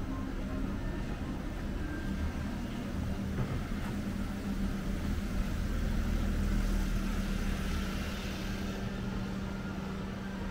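A motor vehicle's engine running close by on the street, a steady low hum that grows louder for a few seconds past the middle and then eases off.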